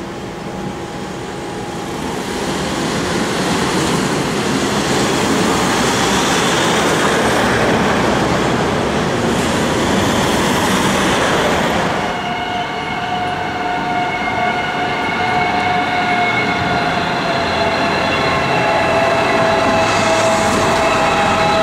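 Road traffic moving off across a railway level crossing as the boom gates lift, a loud steady rush of passing vehicles. About halfway through the sound changes abruptly to a steady whine with several pitches from passing heavy vehicles.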